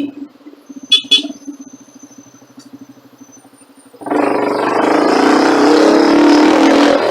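Vehicle engine and exhaust idling with a rapid, even pulse, with two sharp clicks about a second in. About four seconds in it opens up suddenly and runs loud and steady at higher revs.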